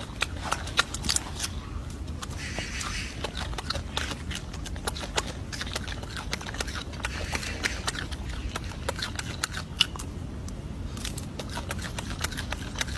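Scattered sharp clicks and crackles over a steady low rumble, from a golden snub-nosed monkey picking at and peeling a piece of fruit.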